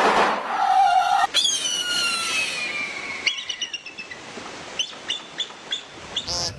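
Birds calling: a harsh, noisy rattle fills about the first second, then a clear whistle slides steadily downward for over a second, followed by a run of short, sharp chirps.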